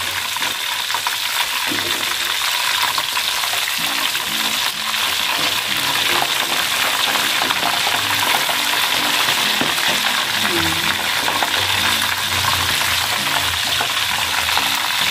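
Flour-battered chicken pieces deep-frying in hot oil in a wok: a steady crackling sizzle with many fine pops.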